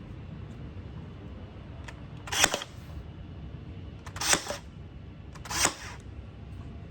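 Pin nailer firing three times, each shot a sharp snap with a short burst, spaced a second or two apart.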